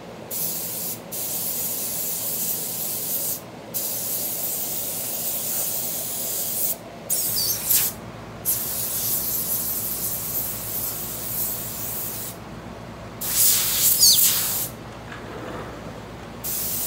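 A cheap $10 Harbor Freight airbrush hissing as it sprays paint onto fabric. The spray stops and starts in bursts with short pauses as the trigger is let go, with one louder, longer burst about three-quarters of the way through.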